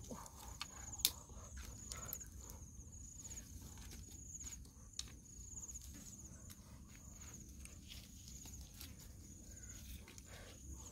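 An insect keeps up a faint, steady, high-pitched pulsing trill. Light clicks and rustles of dry sticks being laid out for a fire come in now and then, the clearest about a second in and about five seconds in.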